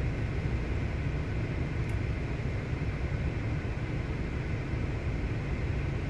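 2015 Mercedes-Benz S550's M278 twin-turbo V8 idling, a steady low rumble. The mechanic says he can feel a misfire in it.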